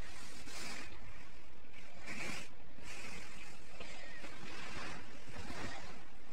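Short bursts of rustling and scratching, about one a second, as a cat tussles with a hand on a sequined fabric blanket.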